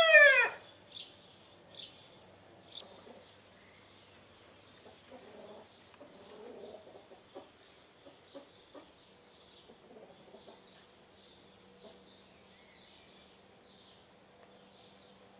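A rooster's crow ends with a falling note in the first half second. Then come faint, scattered short clucks and clicks from hens foraging in grass, with a few faint high chirps.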